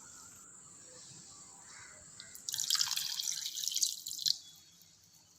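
Water poured into a vessel holding chopped herbs. After a quiet start, a splashing pour of about two seconds begins about halfway in and stops suddenly.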